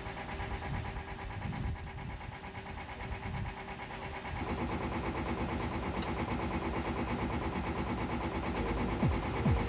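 Boat engine running steadily, a continuous rhythmic drone that gets louder and fuller about four and a half seconds in.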